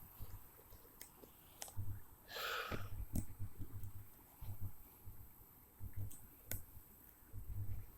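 Scattered sharp clicks and low bumps of handling noise from a small flexible-leg (bendy) tripod being bent and adjusted, with a short breathy hiss about two and a half seconds in.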